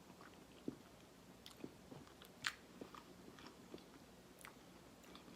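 A person eating and chewing: faint mouth sounds with scattered small, wet clicks and smacks. The sharpest comes about two and a half seconds in.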